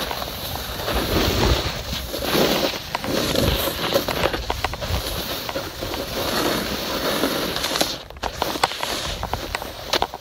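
Snowboard sliding and scraping over snow as the rider carves downhill, the noise swelling and fading unevenly with each turn, mixed with low wind rumble and handling rustle on the hand-held phone's microphone.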